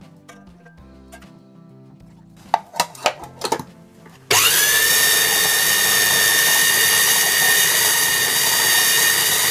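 A few sharp knocks, then about four seconds in a food processor's motor starts and runs steadily with a constant high whine as it purées hot sweet potato for kinton. The machine is about twenty years old and still working.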